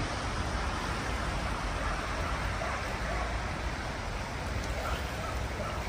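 Swollen river in flood rushing fast: a steady, even noise of moving water.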